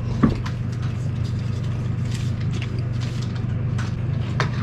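Eating with chopsticks: chewing, with scattered small clicks of chopsticks and dishes, over a steady low hum.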